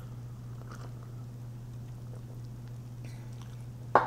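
Faint mouth sounds of a person sipping and swallowing a drink from a ceramic mug, over a steady low hum, with one sharp click near the end.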